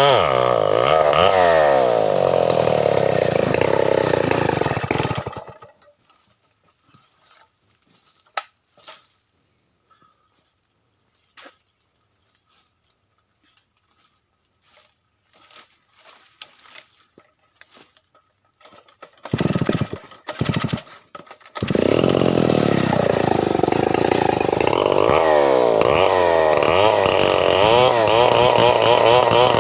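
Stihl 070 two-stroke chainsaw running and revving up and down, then cutting out about five seconds in. A long quiet stretch with scattered clicks and knocks follows, then the engine sputters in a few short bursts and catches again about twenty-two seconds in, running on.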